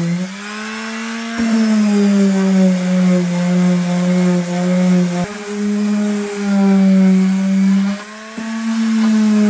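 Corded electric palm sander running on a plywood boat hull, a steady motor hum whose pitch sags and recovers as it is pressed into the wood, with a few abrupt jumps in pitch and level. The hull is being roughed up so the epoxy and fibreglass will take.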